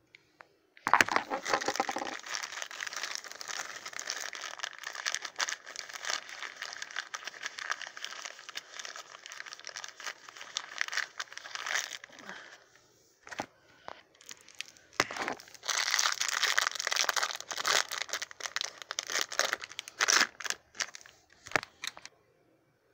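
Crinkling and tearing of a foil blind-bag wrapper as it is handled and opened. It comes in two long stretches, with a few short crackles between.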